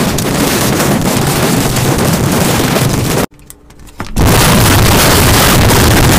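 Aluminium foil crumpled and crinkled right against the microphone: a loud, dense crackle that breaks off for about a second, about three seconds in, then starts again.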